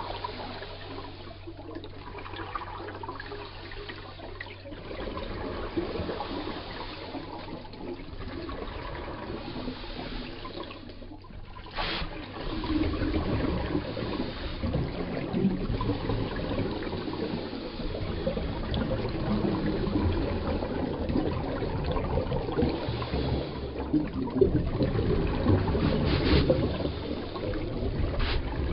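Underwater recording during a scuba dive: a continuous rushing, bubbling water noise from the diver's exhaled air bubbles and water moving past the camera, louder and busier from about twelve seconds in.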